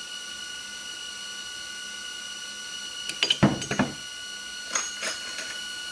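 Homemade induction case annealer running, with several steady high tones from the machine. About three seconds in comes a sharp metallic clatter as an annealed 50 cal brass case is released and drops out, followed by a couple of lighter clicks.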